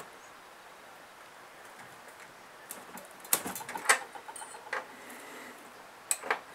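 A few scattered clicks and knocks of hand tools on metal parts as a fastener is worked loose, with faint room tone between.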